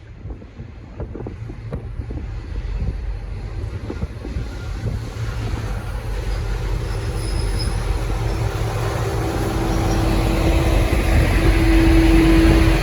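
V/Line N class diesel-electric locomotive rumbling and growing steadily louder. A steady low drone comes in about halfway through and strengthens toward the end.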